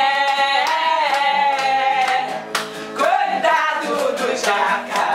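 Carnival marchinha sung by a small group to a strummed acoustic guitar with hand claps keeping a steady beat. A voice holds one long high note for about the first two and a half seconds, then the singing goes on in shorter phrases.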